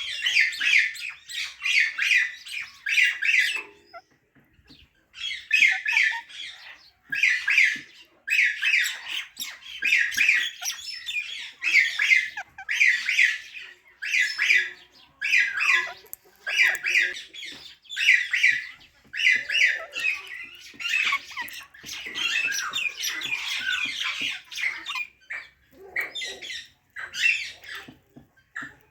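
Parrot calling in rapid series of short, harsh, high calls, with brief pauses about four and six seconds in and a denser unbroken run near the end.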